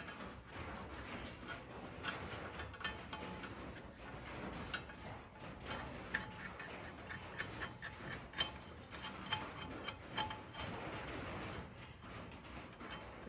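Faint, irregular small metal clicks and light scrapes as a bolt and bracket hardware are worked by hand into a UTV snow plow mount.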